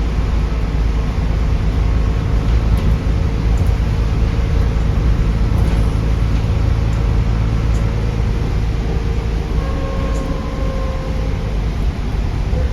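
Stagecoach Midlands bus 18398's diesel engine running under way, heard from inside the bus as a steady low rumble. About nine or ten seconds in, a thin turbo whistle comes up and rises slightly in pitch.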